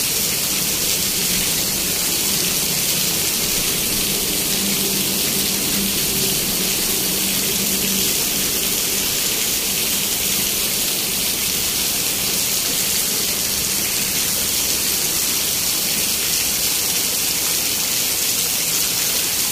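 Heavy rain falling steadily, with runoff pouring off a roof edge and splashing onto wet pavement: an even, unbroken hiss.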